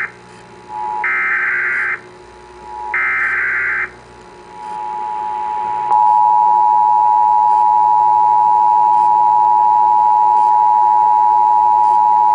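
Emergency Alert System broadcast tones. Two one-second bursts of the SAME digital header data come about one and three seconds in. Then the two-tone EAS attention signal (853 and 960 Hz) fades in around four to six seconds and holds loud and steady.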